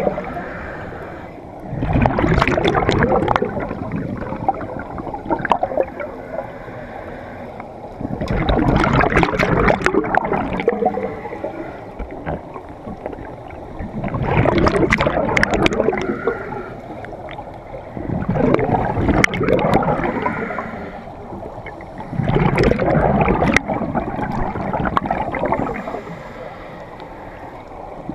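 A scuba diver breathing through a regulator underwater. Each exhalation is a loud bubbling rush of two to three seconds, coming about every four to six seconds with quieter gaps between.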